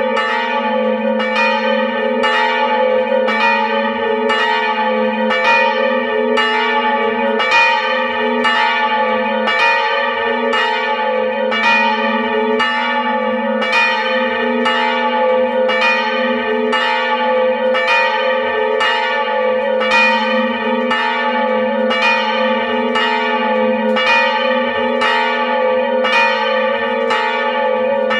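Two swinging church bells, of about 450 kg and 380 kg, rung together and heard close up inside the belfry. Their clappers strike in a steady, even succession of roughly one and a half strokes a second, each stroke landing over the continuous hum of both bells still sounding.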